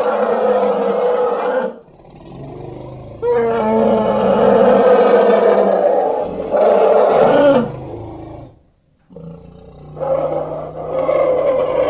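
Elephant roaring: a series of loud, harsh calls, one ending about two seconds in, a long one from about three seconds to seven and a half with a brief break, and another starting near the end.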